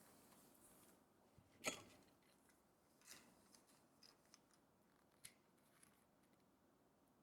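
Small scissors snipping: a handful of short, sharp snips and clicks, the loudest about a second and a half in, with fainter ones following.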